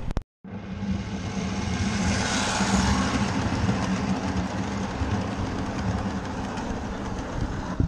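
Ride-on miniature railway train running past close by, its coach wheels rolling on the rails over a steady low hum, loudest about two to three seconds in.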